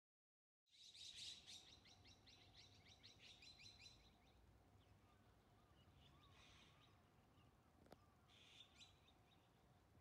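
Azure-winged magpie calling, faint: a fast chattering run of short harsh notes lasting about three seconds, then two brief calls later on.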